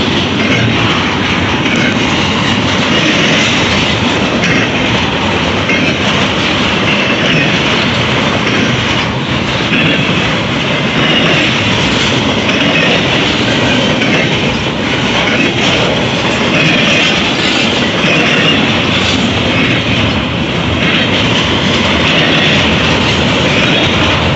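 Double-stack intermodal container train rolling past: steel wheels running on the rails of the passing well cars, a loud, steady rolling noise.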